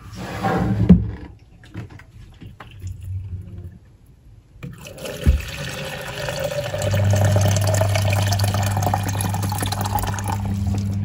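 Electric kettle heating water: a rushing water noise starts about five seconds in and grows louder, and a couple of seconds later a steady low hum joins it. Brief knocks and handling noises come first.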